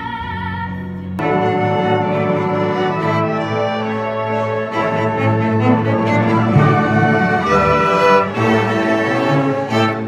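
A sung note with vibrato ends about a second in. Then a string orchestra plays, with a violin close by.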